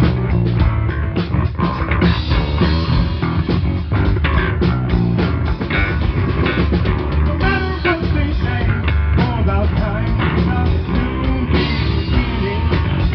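Live funk-rock band playing loud and steady: electric guitar, electric bass and drum kit, with a pitch-bending melodic line about halfway through.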